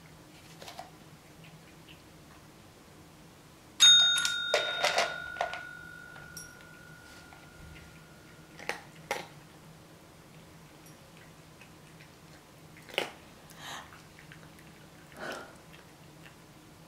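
A desk call bell struck once about four seconds in, its clear tone ringing out and fading over about four seconds. While it rings, dry cat kibble clatters into a ceramic bowl in a quick run of clicks, and a few soft taps and clicks follow later.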